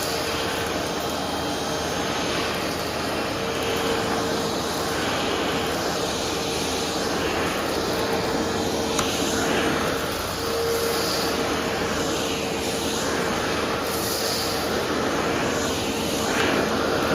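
Vacuum cleaner running steadily, its motor holding a constant whine under the rush of air, which swells and eases every second or two.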